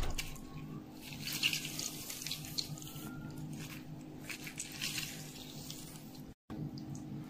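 Half a lemon squeezed by hand over herbs, spices and oil in a glass dish: juice dripping and spattering in irregular spurts.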